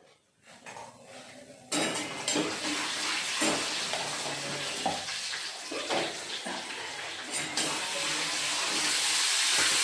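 Eggplant sabzi frying in hot oil in a pan: a sizzle starts suddenly about two seconds in and grows a little louder, with a spoon clinking and scraping against the pan as it is stirred.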